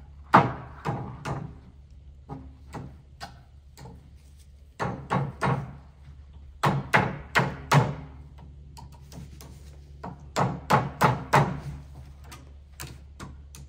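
Hard knocks on metal in bursts of three to five blows, each ringing briefly: something being struck or hammered on the tractor's front attachment.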